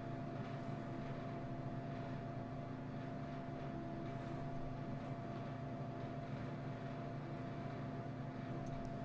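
Steady low machine hum with a few held tones.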